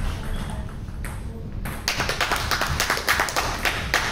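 Table tennis ball being played, sharp clicks of the ball off bats and table. About halfway through comes a dense patter of many quick sharp clicks, the loudest part.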